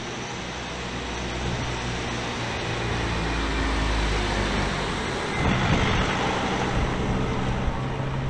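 Mercedes-Benz Sprinter 316 CDI pickup's diesel engine running as the van drives past, with tyre noise on brick paving, growing louder as it approaches.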